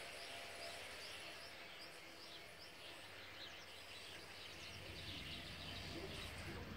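Faint outdoor ambience with small birds chirping and twittering in the background, many short high calls, busier in the second half.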